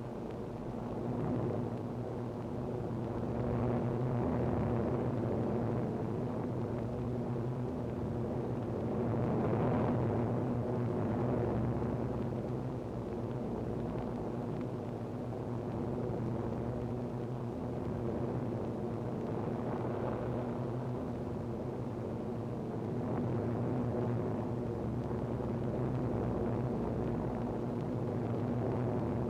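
Piston-engined aircraft droning steadily in flight, the engine note swelling and easing a few times.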